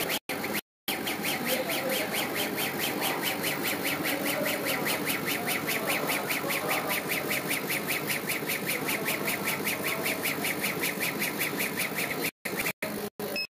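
CO2 laser engraving machine running as its head rasters back and forth engraving a granite tile: a fast, even mechanical pulsing, about eight beats a second, with a steady hiss under it. It starts about a second in and stops shortly before the end.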